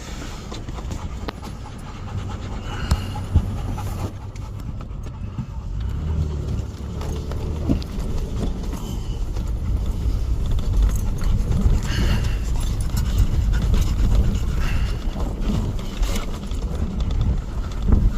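Wind buffeting the microphone: a low rumble that grows stronger from about six seconds in, with scattered knocks.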